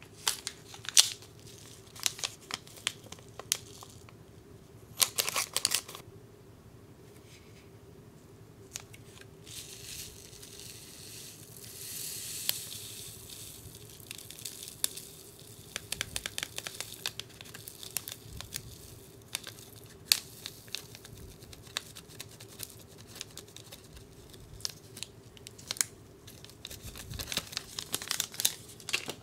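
Foil candy-powder packets crinkling and being torn, among many small clicks of hard plastic toy parts being handled. Around the middle there is a soft hiss of powder pouring from a packet into the plastic toy sink.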